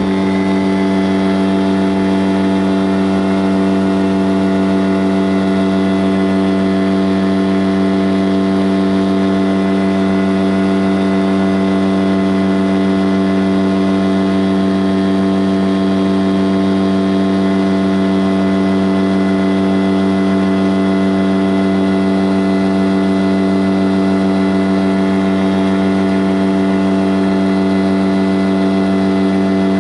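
An engine running at a constant, unchanging speed, a steady drone with no rise or fall in pitch.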